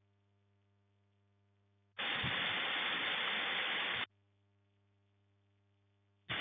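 Steady hiss of heavy rain that cuts off and back in abruptly. It drops out for about two seconds at a time, and the gaps are near silent apart from a faint electrical hum.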